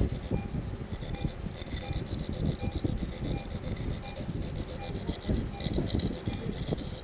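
Irregular low rubbing and crackling noise throughout, with faint short beeps repeating about twice a second.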